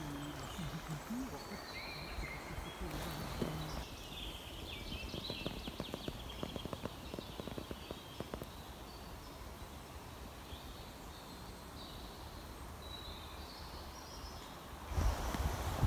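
Quiet forest ambience with scattered faint bird chirps and a run of soft crackles in the middle. Near the end a low rumble of wind on the microphone comes in.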